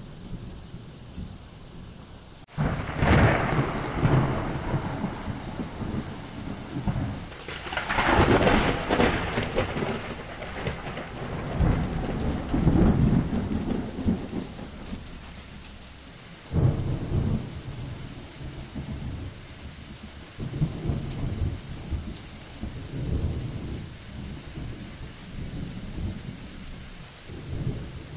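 Steady rain with repeated thunder: a sudden clap about two and a half seconds in, then further peals and rumbles every few seconds that grow softer toward the end.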